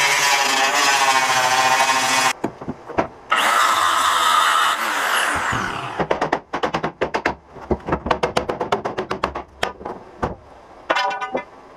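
Angle grinder running with a steady, wavering whine as its disc cuts into the boat deck, stopping abruptly about two seconds in, then running again briefly and spinning down. After that comes a quick, irregular run of sharp knocks and clicks, and a short rattle near the end.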